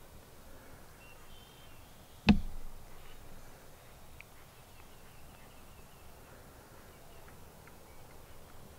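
A single sharp knock close to the microphone about two seconds in, dying away within half a second, over a quiet outdoor background.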